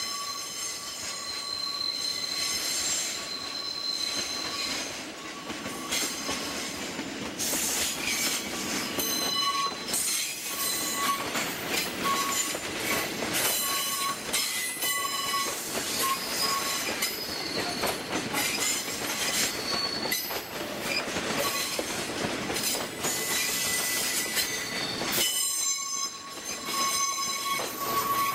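Freight tank wagons rolling slowly over curved track and points, wheels squealing with high, shifting tones and clicking over the rail joints.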